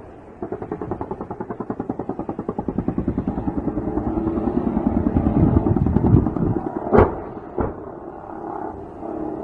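A long burst of sustained automatic gunfire: rapid, evenly spaced shots that grow louder for about six seconds. Two sharp bangs follow about seven seconds in, the first the loudest.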